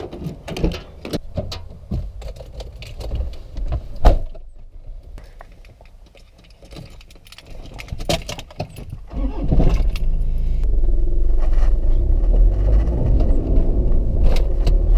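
Car keys jangling and clicks of the door handle and lock, with a loud knock of the car door shutting about four seconds in. A few clicks as the ignition key is turned about eight seconds in, then the car's engine starts about a second later and runs steadily.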